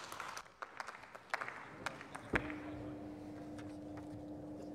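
Scattered clapping dying away, then a single thump a little over two seconds in, followed by a steady low hum that holds for about three seconds.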